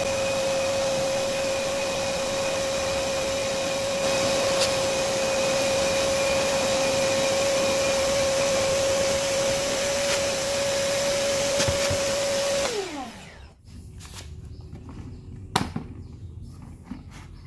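A 600-watt Fisch MB10LT wet and dry vacuum cleaner running with a steady whine, then switched off about 13 seconds in, its motor falling in pitch as it winds down. A few sharp clicks follow.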